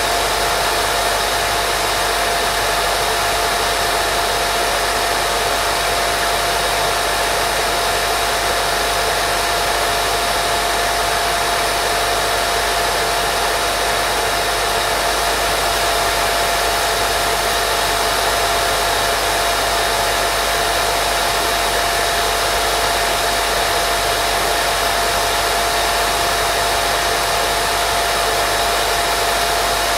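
Steady, unbroken baby-sleep white noise, a full hiss with a thin steady tone running through it.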